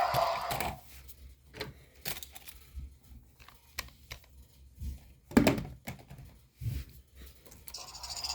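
Scattered clicks and taps of plastic toy figures being handled and moved, with a louder knock about five seconds in.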